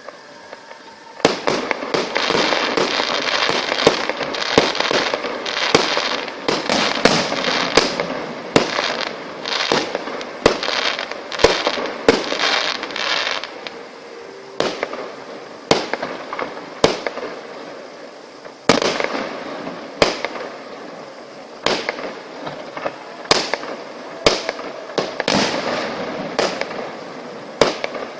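Fireworks display: a dense barrage of bangs with crackling starts about a second in, eases off after about 13 seconds, then gives way to separate bangs every second or so.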